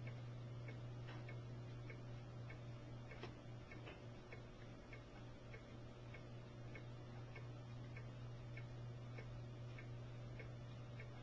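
Faint, regular ticking, about one and a half ticks a second, over a steady low hum.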